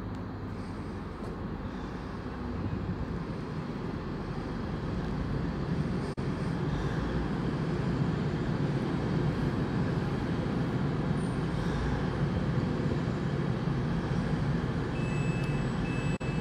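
TransPennine Express Class 185 diesel multiple unit approaching along the platform, its underfloor diesel engines and running gear a steady deep rumble that grows louder about three seconds in as it draws near. Faint thin high squeals come in near the end as the train slows.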